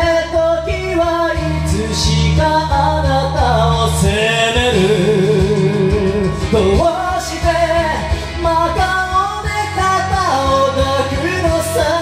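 A singer sings a slow Japanese pop ballad over a karaoke backing track, holding some notes with vibrato.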